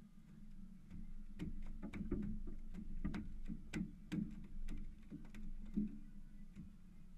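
A landed halibut flopping on a boat's deck: a run of irregular knocks and slaps, about three a second, starting about a second in and dying away near the end.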